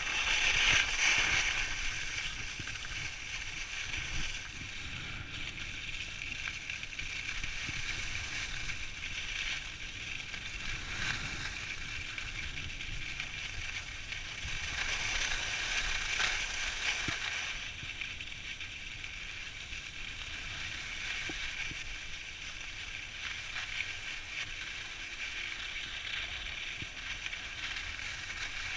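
Skis sliding and scraping on packed snow: a steady hiss that swells several times as the skier turns.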